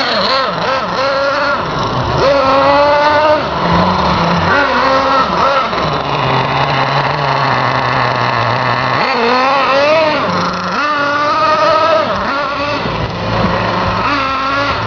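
Simson S50 moped's small two-stroke single-cylinder engine revving up and down several times, with a steadier, lower-pitched stretch in the middle.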